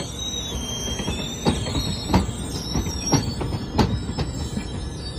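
Bilevel passenger coaches rolling slowly, with their steel wheels squealing against the rail in a high, wavering tone over a low rumble. Several sharp clicks and knocks come from the wheels passing over the track, the loudest a little under four seconds in.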